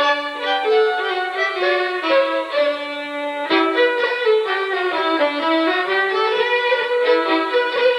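Fiddles playing a bowed fiddle tune, a continuous melody of quickly changing notes.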